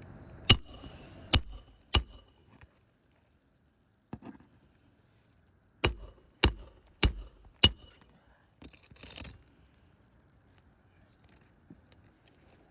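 A roofing nail being driven with a roof snake tool under a lifted asphalt shingle: sharp metal-on-metal blows with a short high ring. There are three quick strikes near the start, then four more in a steady run a few seconds later.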